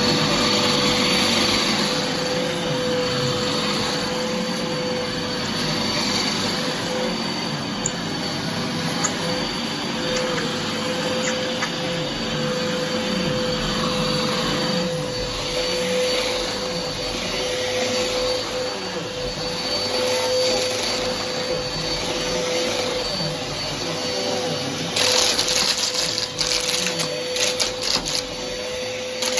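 Hoover Whirlwind vacuum cleaner running loud and steady, its motor giving a constant whine over a rushing hiss. About 25 seconds in, a burst of crackly rattling joins it.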